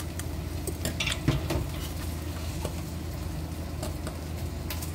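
Spoon stirring a sour cream sauce in a bowl, with a few light clinks about a second in, over a steady low hum.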